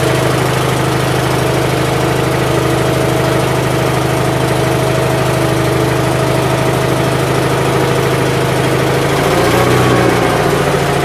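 Gravely 818-T garden tractor engine idling steadily just after a cold start, warming up. It swells briefly about nine seconds in, then settles back to an even idle.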